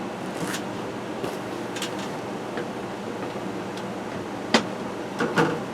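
A few light clicks and taps from handling, the loudest a sharp click about four and a half seconds in followed by a short cluster of knocks, over a steady hum of room air conditioning.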